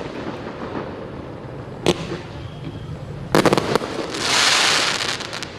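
Fireworks going off: a single sharp bang about two seconds in, then a quick cluster of bangs followed by a hiss lasting about a second.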